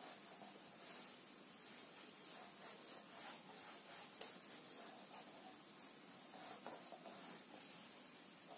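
Whiteboard eraser wiping marker writing off a whiteboard: faint, repeated back-and-forth rubbing strokes, with a single sharp tick about four seconds in.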